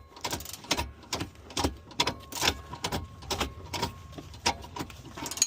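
Irregular metallic clicks, clanks and knocks, a few each second and some briefly ringing: hand tools and metal parts being worked during the final stage of a car's sway bar and shifter install.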